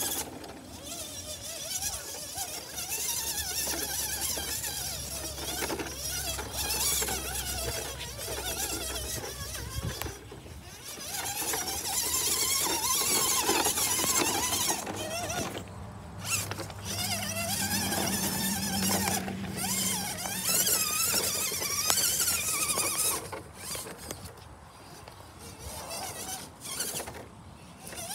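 Everest-10 radio-controlled rock crawler's electric motor and gears whining, rising and falling in pitch as the throttle is worked, with short pauses, while the tyres and chassis scrape over loose stones.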